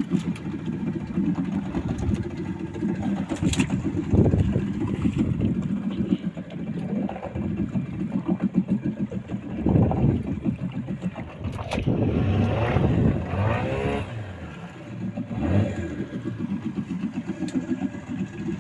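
Outboard motor of a small wooden fishing boat running steadily with a fast pulsing drone; its pitch shifts for a few seconds in the middle.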